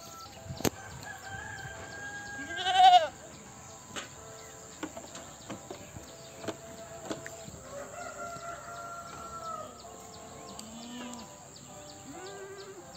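Goats bleating, several calls in turn. The loudest is a wavering bleat about three seconds in, and there are scattered light clicks throughout.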